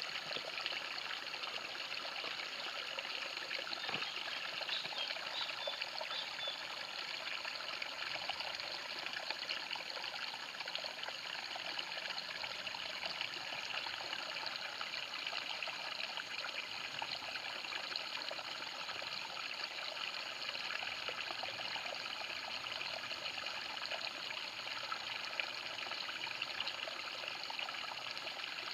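Small stream trickling and flowing steadily over stones.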